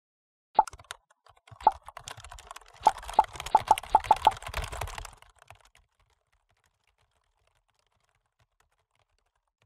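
Computer keyboard typing and clicking sound effect: a scatter of sharp clicks, thickest in the middle over a low rumble, stopping about six seconds in.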